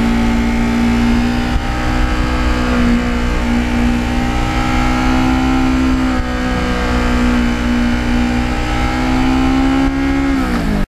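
A 2009 Kawasaki Ninja's engine heard from on the moving bike, running steadily at cruising speed with a rush of road and wind noise. Its pitch creeps up slightly, then drops near the end before cutting off suddenly.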